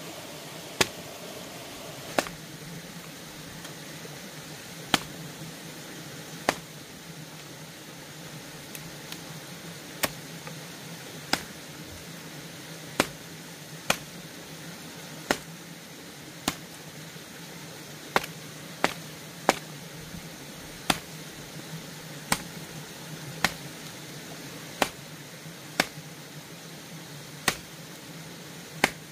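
Sharp single clicks, about twenty of them, coming one every one to two seconds at an uneven pace over a steady background hiss with a low hum.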